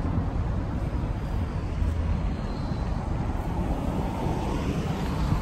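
Outdoor street ambience: a steady low rumble, with no distinct events.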